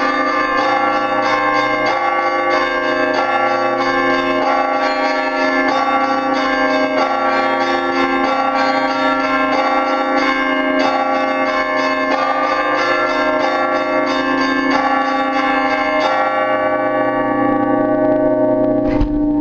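Church bells ringing: a peal of several bells struck in a quick, busy rhythm, their tones overlapping and ringing on under a steady deeper bell. About sixteen seconds in the quick high strikes stop and the bells are left ringing, with one heavy low stroke near the end.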